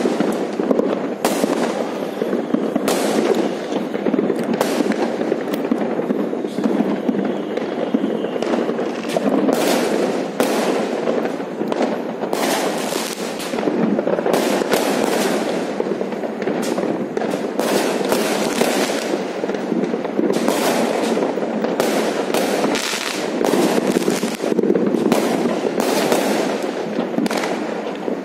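Many fireworks and firecrackers going off at once: a continuous barrage of overlapping bangs and sharp cracks over a steady din of further explosions.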